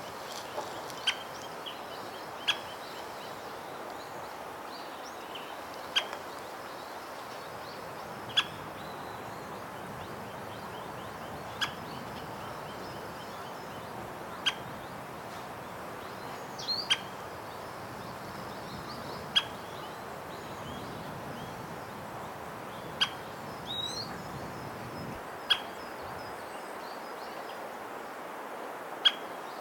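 White-backed woodpecker giving single short, sharp call notes, repeated about every two to three seconds at irregular intervals. Another bird gives a brief falling note just before the three-quarter mark.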